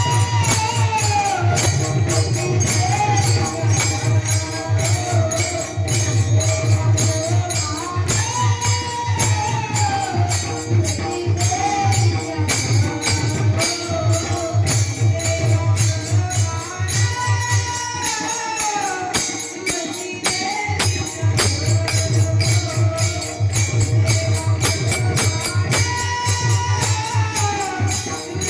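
Varkari devotional bhajan: a solo voice singing a winding melody over hand cymbals (taal) struck in a fast, even rhythm, with a drum beating steadily underneath. The drum drops out for a moment just past the middle.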